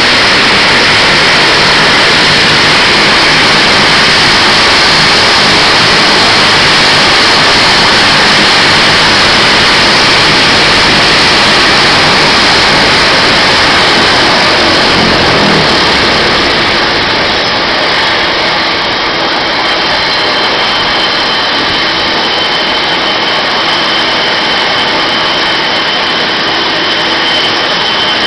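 Dash 8 Q300's Pratt & Whitney PW123 turboprop engines running down at shutdown: a loud, steady rushing whine. About halfway through it eases and loses its hiss, leaving a thinner, steady high whine.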